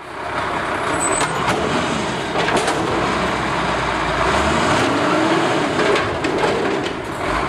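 Garbage truck sound: a truck running with a dense, steady mechanical noise and scattered clanks, fading in at the start and fading out near the end.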